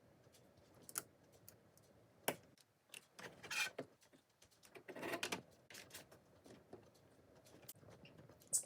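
Plastic LEGO pieces being handled and snapped together: faint scattered clicks with two short rattles of loose pieces.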